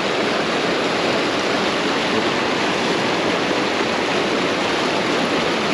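Small creek rushing and burbling over its bed close by, a steady loud wash of water.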